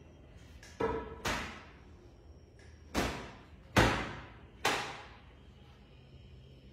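Five sharp knocks of wood on wood, a board bumping against a wooden bed frame, spaced unevenly over about four seconds, each ringing on briefly in the bare room.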